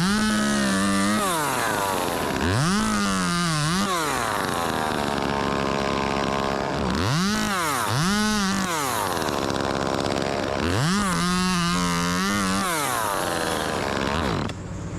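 Two-stroke chainsaw revved from idle to full throttle and back down about five times, each burst lasting roughly one to two seconds, with the engine idling low in between.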